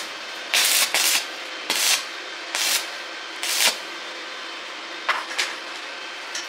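Short scraping strokes, about six in a few seconds at an uneven pace, over a steady background hum.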